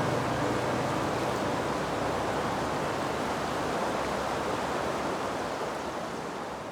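Steady rush of a high mountain waterfall, an even hiss of falling water that slowly fades near the end.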